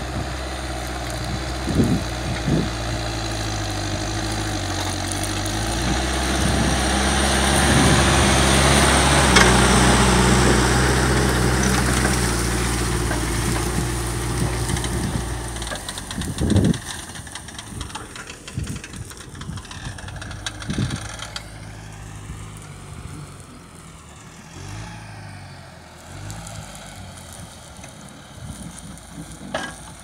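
Claas Celtis 456 RC tractor's diesel engine running steadily under load while pulling a mounted reversible plough. It grows louder as the tractor comes close, then, after a knock about halfway through, runs on much quieter and farther off.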